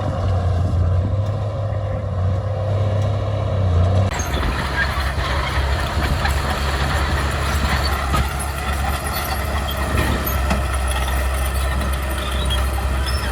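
Heavy diesel engine of earthmoving machinery running steadily under load. About four seconds in the note changes abruptly to a lower, rougher engine sound.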